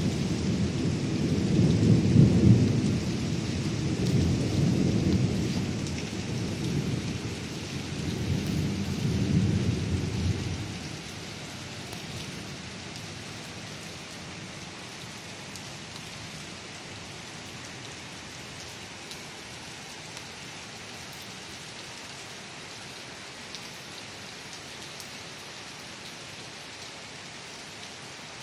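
Steady rain hissing down, with a long roll of thunder rumbling over it for the first ten seconds or so, swelling a few times before it fades and leaves only the even sound of the rain.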